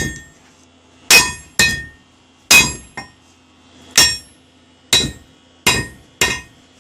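Hand hammer pounding a heated used horseshoe in blacksmithing: about seven uneven, ringing metal-on-metal blows with short pauses between them.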